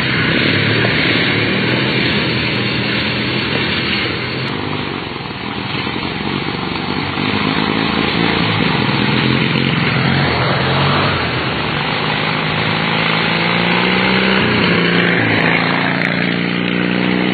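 Racing lawn tractor engines running loud and hard, their pitch shifting up and down about fifteen seconds in.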